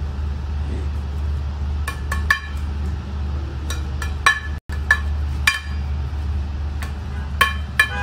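Metal spoon clinking against a plate while stirring and pressing madhrooba: about a dozen sharp, ringing clinks, some in quick pairs, over a steady low hum. The sound drops out for an instant just after halfway.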